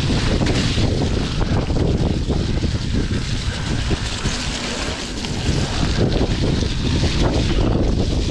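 Mountain bike descending a dirt trail at speed: wind rushing over the microphone and tyres rolling on dirt, with a steady clatter of small knocks as the bike runs over bumps.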